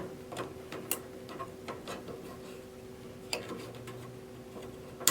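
Light clicks and taps of wires being fitted back onto a snack vending machine's tray motor by hand, with one sharper click near the end, over a faint steady hum.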